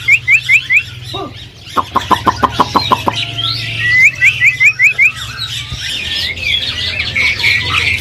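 Many caged songbirds calling and singing over each other. Twice there is a quick run of about six rising whistled notes, once at the start and once about four seconds in. Between about two and three seconds in, one bird gives a fast train of about a dozen repeated notes.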